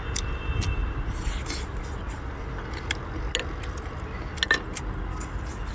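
Chewing abalone, with scattered short clicks and clinks of a metal utensil against the pot of seafood stew, over a steady low rumble; a sharp double clink about four and a half seconds in.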